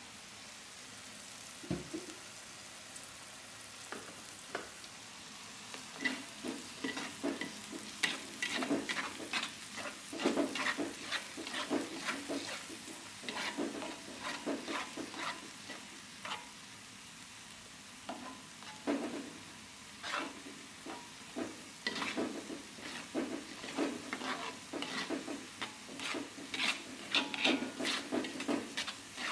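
Wooden spatula scraping and stirring a blended spice-and-tomato paste as it sautés in a wok, over a steady low sizzle. The scraping is sparse at first, then comes in quick irregular runs from about six seconds in, with a short pause past the middle.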